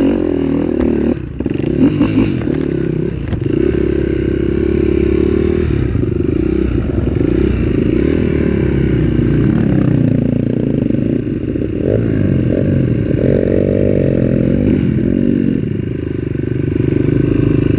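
Dirt bike engine running under load off-road, its revs rising and falling again and again.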